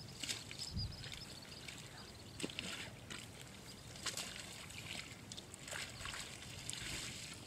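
Faint sloshing of muddy water as water buffalo shift about in a mud wallow, with scattered soft knocks and a low thud about a second in.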